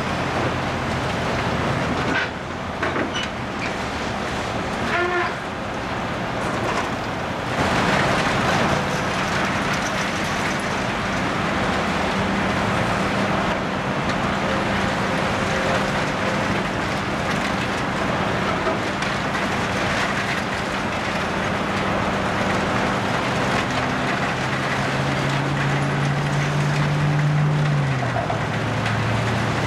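Volvo tracked excavator's diesel engine running under hydraulic load while its demolition shear tears into the building, with continuous crunching and scraping of torn metal and debris. The engine note rises a few seconds before the end and drops back shortly after.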